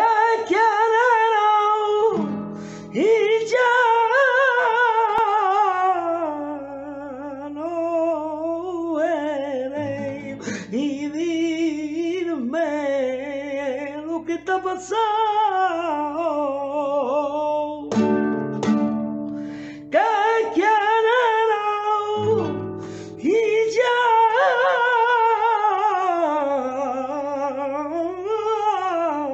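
A male flamenco singer sings a fandango in long, wavering, ornamented lines over his own Spanish guitar. Strummed chords stand out in the short gaps between sung phrases.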